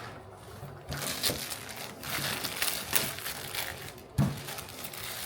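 Cardboard box and its packaging being cut and pulled open by hand, with irregular scraping, rustling and crinkling, and a sharp knock about four seconds in.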